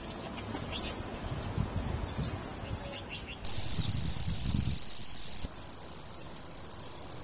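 Insects chirring: a high, rapidly pulsing buzz starts suddenly about three and a half seconds in, is loudest for the next two seconds, then carries on a little softer. Before it there is only a faint, thin, steady high tone over low outdoor rumble.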